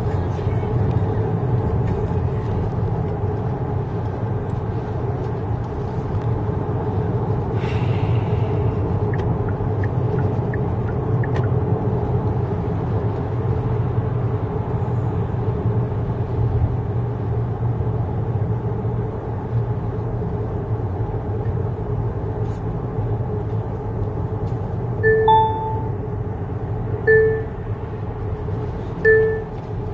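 Steady low rumble of a car's engine and tyres heard inside the cabin while driving. Near the end, three short electronic chimes sound about two seconds apart.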